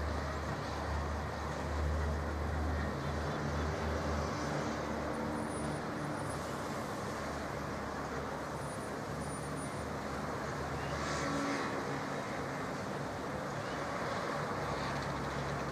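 Steady road-vehicle noise: a low engine rumble under a hiss of road noise, the rumble strongest in the first few seconds.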